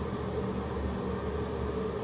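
Steady mechanical hum with a hiss, a small electric motor or fan running without change.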